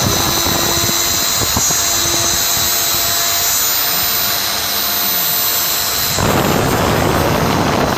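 3-axis CNC milling machine running: the spindle gives a steady high whine over the noise of the cutter working the material. A little after six seconds the lower rumble grows louder and fuller.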